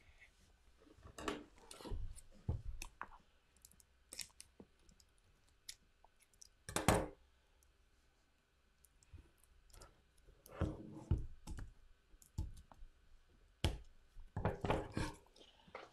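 Irregular quiet clicks and knocks of a boxed card deck's packaging being handled and opened, with short gaps between them and one sharper knock about halfway through.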